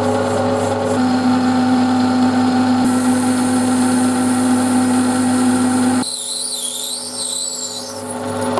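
Workshop power tool running steadily with an even motor hum. The sound changes abruptly about a second in and again about six seconds in.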